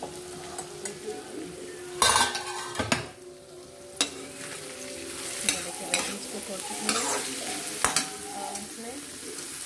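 Chopped vegetables sizzling in oil in a kadhai while a steel spatula stirs them, scraping against the pan several times. A loud metal clatter about two seconds in, as the steel lid comes off the pan.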